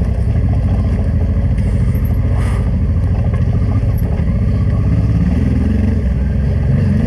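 Honda Transalp 600's V-twin engine running at low, steady revs as the motorcycle rides slowly over a rough dirt trail, with a brief click about two and a half seconds in.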